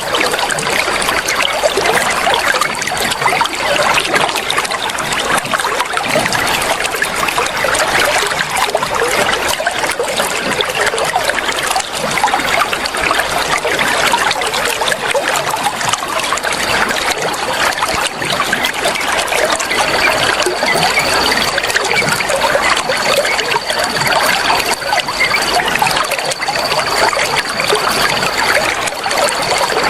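Running water trickling and splashing steadily without a break. A thin, steady high-pitched tone sounds behind it, louder in the last third, and breaks off briefly twice.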